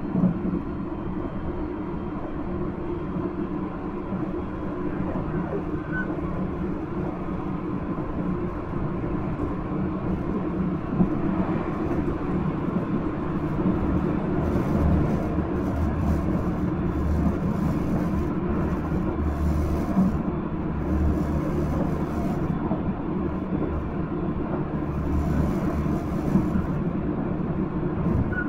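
Nankai 1000 series electric train running at speed, heard from inside the car: a steady rumble of wheels on rail, with a few short knocks. A deeper rumble grows from about halfway.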